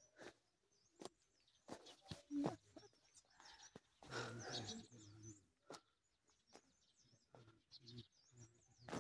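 Small birds chirping faintly and high, over footsteps walking uphill on a path, a step every second or less. A brief, louder noise comes about four seconds in.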